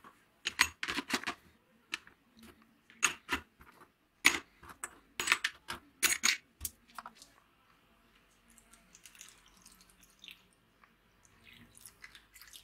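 Rusty steel parts (pins, a cylinder and coil springs) clattering into a plastic tub as they are dropped in one after another, a quick run of sharp clinks and knocks over about six seconds. After that, a faint soft stretch as liquid is poured in over them.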